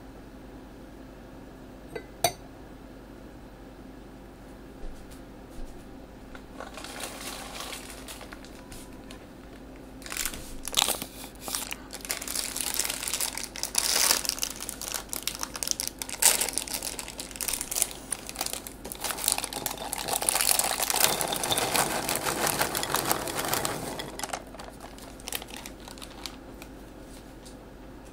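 A plastic bag or wrapper being handled: crinkling and rustling with many small crackles, starting a few seconds in and stopping near the end, after a single sharp click.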